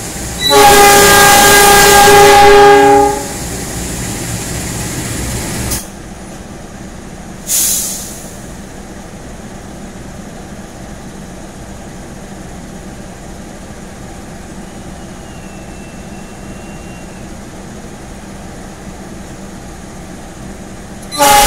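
KAI CC 206 diesel-electric locomotive's multi-tone air horn sounding one long blast about half a second in: the Semboyan 35 signal that the train is ready to depart. Between blasts the locomotive's diesel engine runs steadily, with a short hiss about seven and a half seconds in, and the horn starts another blast just before the end.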